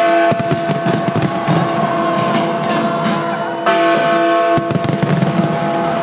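Music with held chords that change about four seconds in, over a busy crackling layer.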